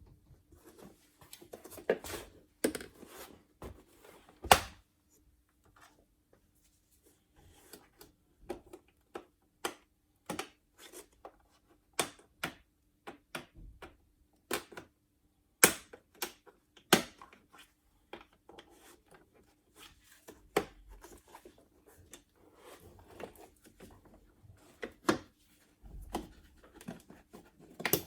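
Hands working on a vacuum cleaner: scattered sharp clicks, taps and knocks at an irregular pace, with soft rubbing between them and a faint steady hum underneath.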